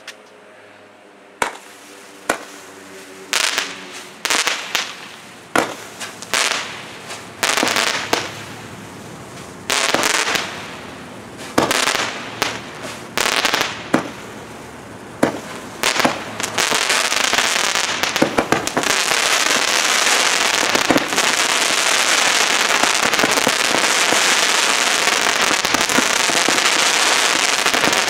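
Phantom Fireworks 'Thermal Expansion' 96-shot, 200-gram fireworks cake firing. Single sharp shots come roughly a second apart at first. Past the halfway mark they give way to a fast, dense barrage that runs together without gaps.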